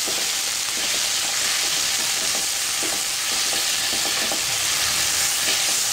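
Chopped tomatoes and onions sizzling steadily in hot oil in a non-stick pan, stirred with a wooden spatula that scrapes and lightly taps against the pan now and then.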